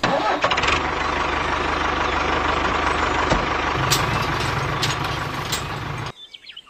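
An engine running steadily at idle, with a low even throb, cutting off abruptly about six seconds in.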